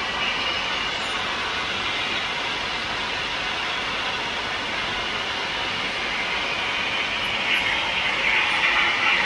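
Fully automatic crystal-pendant machine running with a steady mechanical hiss and whir. The hiss grows a little louder about seven and a half seconds in.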